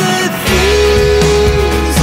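Loud pop music over a loudspeaker, a backing track with guitar and bass, with a girl singing into a microphone in long held notes.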